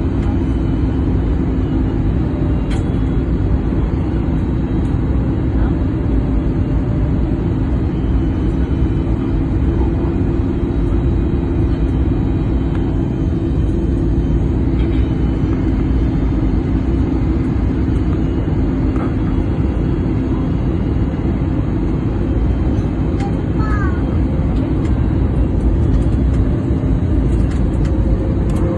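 Airliner cabin noise on final approach: a steady rush of engine and airflow noise with a constant low hum, holding level throughout.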